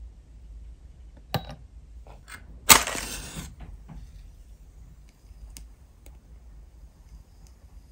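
A wooden match struck and flaring into flame about three seconds in: a sharp scrape, then a rush of noise that fades within a second. A second or so before it, a single sharp click.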